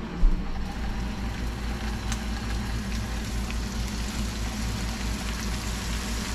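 Pieces of oilfish (walu) sizzling in oil in a frying pan on a gas burner, a steady hiss with faint crackles over a low hum. A short knock just after the start.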